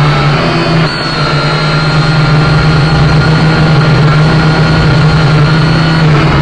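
Small drone's motors and propellers running steadily, a loud even hum with fainter higher whining tones over it, dipping briefly about a second in.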